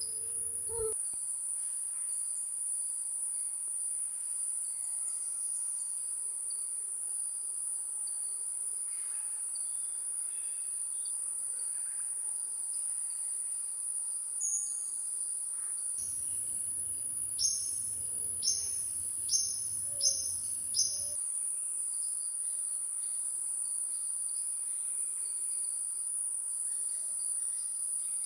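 Steady high-pitched insect drone, crickets or similar forest insects, running without a break. A little past halfway five short, sharp high bird calls come about a second apart over a faint low rumble.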